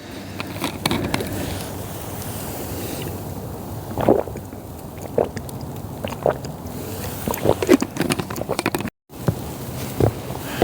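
Steady wind noise with scattered crunching footsteps in snow.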